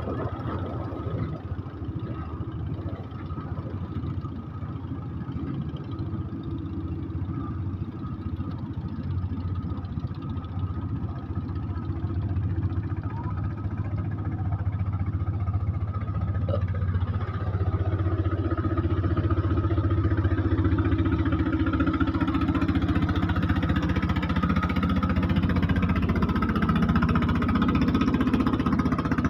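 Klotok river boat engine running steadily. About two-thirds of the way in a second engine note joins and the sound grows louder.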